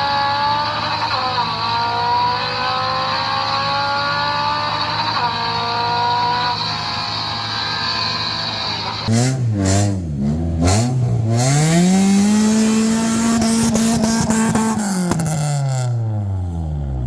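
Honda Civic four-cylinder engine running at a steady speed. About nine seconds in, the revs are blipped up and down several times. Then the engine is revved to a high pitch, held there for about three seconds, and let fall back near the end.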